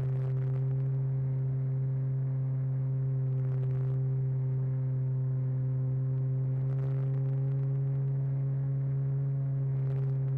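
RC model airplane in flight: the steady low hum of its motor and propeller, picked up by a camera mounted on the airframe, with faint brief hisses about every three seconds.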